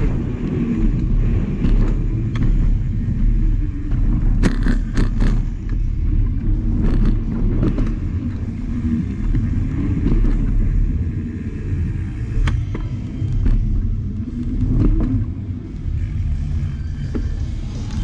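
Bicycle riding through indoor ramps, heard as a constant low rumble of tyres and wind on the camera microphone, with sharp knocks and rattles from the bike about four to five seconds in, again near seven seconds and around twelve seconds.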